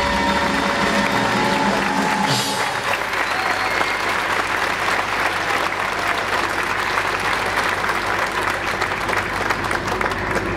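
Circus music ends about two seconds in with a final hit, and the audience breaks into steady applause that fills the rest of the time.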